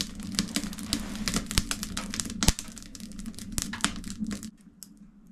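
Small wood fire crackling and popping in a Newport solid-fuel cabin heater with its door open, the kindling freshly lit. The pops come thick and irregular, then thin out about four and a half seconds in.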